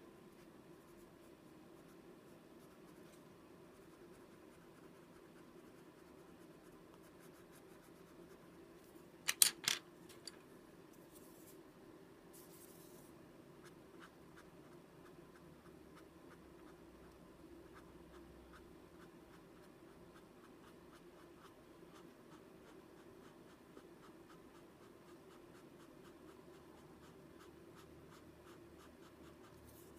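Faint, quick scratching of a Prismacolor colored pencil, then a paper blending stump, rubbing over card stock, over a steady low hum. A brief cluster of sharp clicks comes about nine seconds in.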